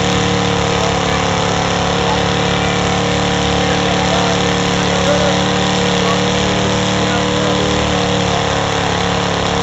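Pickup truck engine running steadily, without revving, as the truck crawls through a mud pit.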